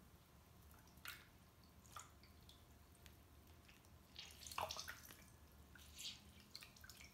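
Water dripping and splashing into a bowl as a wet microfibre cloth is wrung out, in a few separate drips, with the loudest splashes about four and a half seconds in.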